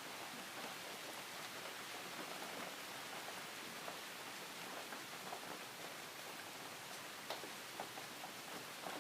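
Recorded rain: steady soft rainfall with scattered light drop ticks.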